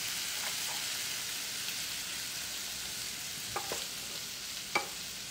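Shrimp sizzling steadily in a frying pan as a wooden spatula turns them, with a few brief faint clicks a little past three and a half seconds in and again near the end.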